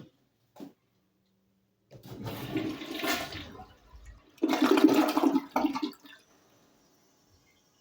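Toilet flushing: two loud rushes of water, the second louder, dying away about six seconds in.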